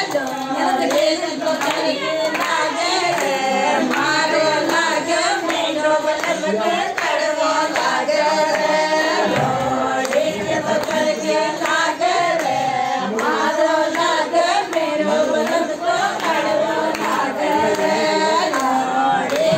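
A group of women singing a traditional Rajasthani wedding song together, of the kind sung at the haldi (peethi) ceremony.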